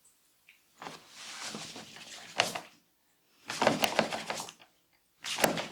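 Hands rubbing vigorously over hair and skin in a head massage, in three bursts of rustling with crackling clicks in them.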